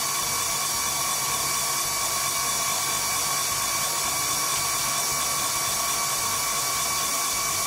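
Electric stand mixer motor running steadily, driving a pasta roller attachment as a sheet of egg pasta dough passes through the rollers; a steady, even whine.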